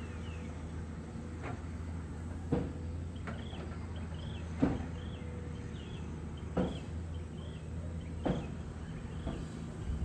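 Komatsu PC200 excavator's diesel engine running steadily in the distance, with a series of sharp knocks and clanks from the machine at work among concrete pipes, the loudest about two and a half and four and a half seconds in. A high chirping call repeats about twice a second from about three seconds in.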